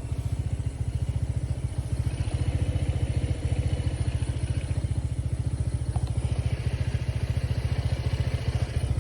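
Motorcycle engine running steadily close by, its exhaust giving a fast, even low thudding beat.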